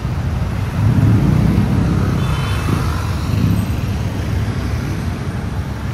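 Road traffic on a busy city street: a steady low rumble of passing vehicles that grows louder about a second in.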